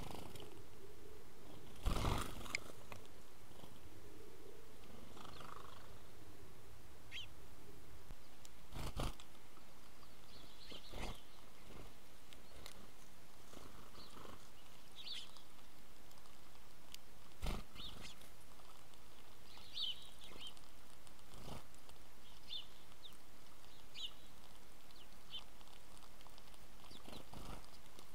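House sparrows giving short, high chirps every few seconds over a steady background hiss, with several sharp knocks scattered through, the loudest about two seconds in.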